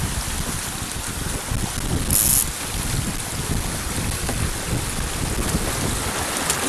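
Wind buffeting the microphone over the steady rush of water along a small sailboat's hull under sail, with a brief high hiss about two seconds in.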